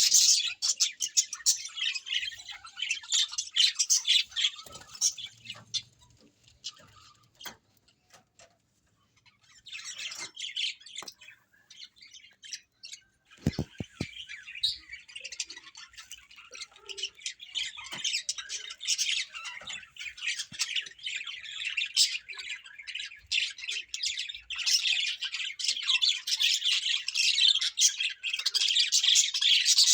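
A flock of small birds chirping and squawking in a dense, rapid chatter, falling quiet for a few seconds about a third of the way in before starting up again.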